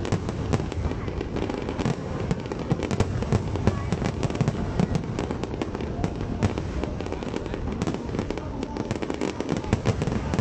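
Fireworks display: aerial shells bursting, with many sharp bangs and crackles in quick succession over a continuous low rumble.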